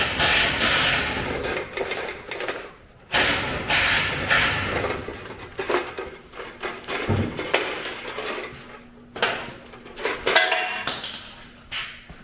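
Metal hand tools clinking, clattering and scraping in irregular bursts during brake line work.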